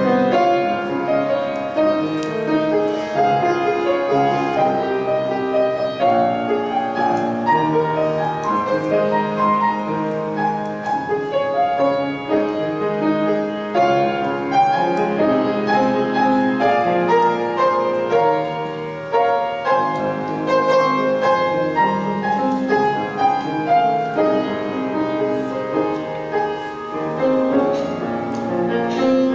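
Piano-led music with held notes and chords changing every half second or so.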